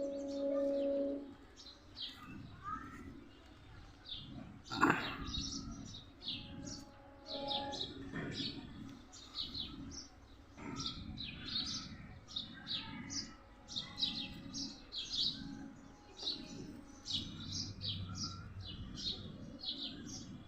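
Small birds chirping over and over in short, high notes, with a single sharp knock about five seconds in.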